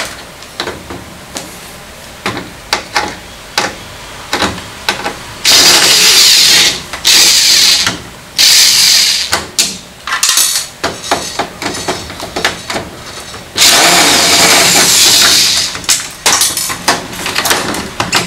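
Electric screwdriver running in three steady runs of one and a half to two seconds each, backing out the screws that hold a washing machine's plastic detergent and water-inlet box, with short plastic clicks and knocks between runs.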